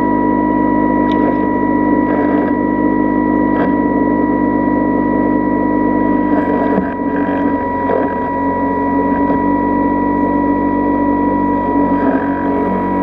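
Model submarine's electric drive motor heard from on board: a loud, steady hum with a constant high whine, and a few faint knocks as the hull pushes through lake weed.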